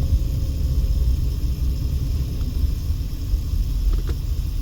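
Car driving slowly, heard from inside the cabin: a steady low rumble of engine and road noise, with a faint hum that fades out about a second in and a couple of light clicks near the end.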